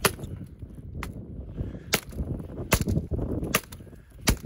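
A tomahawk striking a long-dead fallen tree trunk six times, about one blow a second, each a sharp crack. The dead wood is very hard, and the blows barely bite into it.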